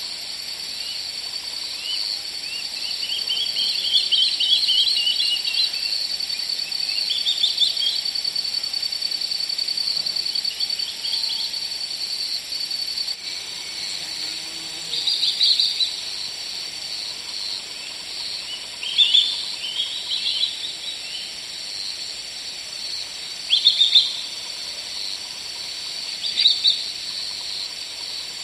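Birds chirping in short bursts over a steady high-pitched insect trill. The chirps come in scattered clusters, loudest about 15, 19, 24 and 26 seconds in.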